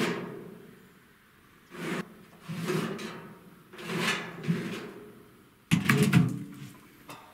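A large metal drum scraping and grinding against a metal sheet as it is twisted and shifted by hand, in about five separate strokes; the last, near the end, starts with sharp clanks as the drum is dragged off the sheet.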